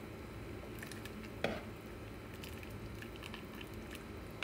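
Metal spoon stirring thin broth in a ceramic-coated pan: soft wet sloshing with faint clicks, and one sharper clink of spoon on pan about one and a half seconds in.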